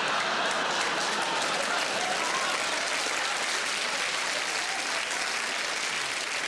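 Large theatre audience applauding after a punchline: a dense, steady clapping that eases off slightly over several seconds.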